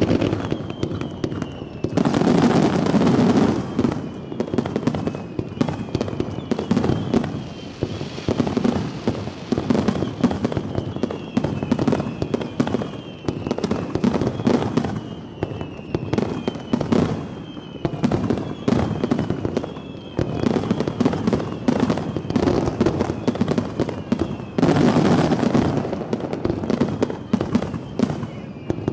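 Fireworks display: a dense, continuous crackle of shell bursts, with heavier booming volleys about two seconds in and again near the end. Short falling whistles repeat throughout.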